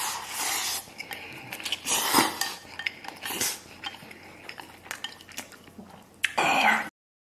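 Noodles being slurped from a bowl in several long sucking draws, with chopsticks clicking against the ceramic bowl. The sound cuts off abruptly near the end.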